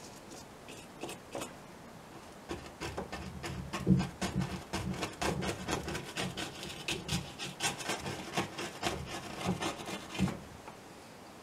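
Paintbrush bristles scrubbing and dabbing acrylic paint onto a canvas in quick, short scratchy strokes. They start about two seconds in and stop shortly before the end.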